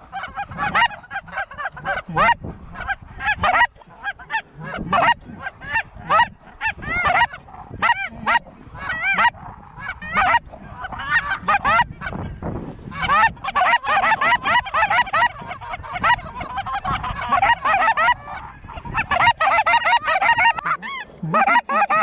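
Geese honking: many short, rising-and-falling honks overlapping in a continuous clamor that grows thicker in the second half.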